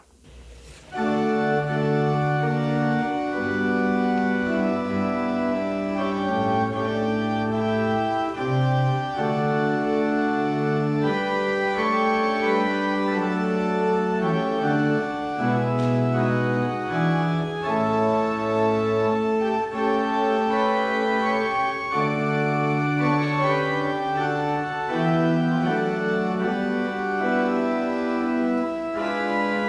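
Pipe organ playing the postlude, a slow piece of held, full chords that begins about a second in.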